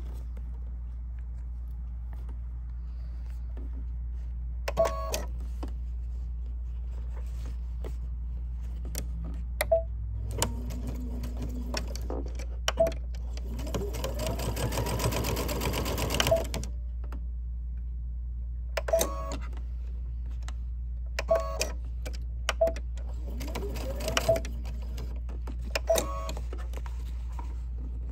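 Sewing machine stitching a seam in short runs, speeding up during the longest run, with sharp clicks between runs.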